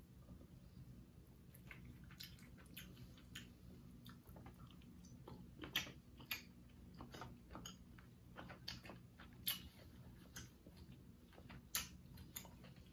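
A person eating seafood boil close to the microphone: faint chewing with irregular soft wet clicks and mouth smacks, a few a little louder, over a faint steady low hum.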